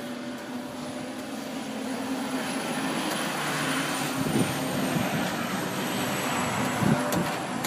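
An aircraft passing overhead: a steady noise that swells slowly, with a faint high whine sliding gently down in pitch. A steady low hum runs underneath, and there are a few soft low thumps in the second half.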